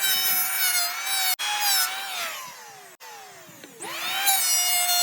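A handheld electric power tool's motor spinning up with a rising whine and running at speed. It winds down with a slowly falling pitch, then spins up again about four seconds in.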